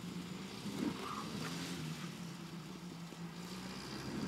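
A vehicle engine running steadily: a low, even hum over faint outdoor background noise.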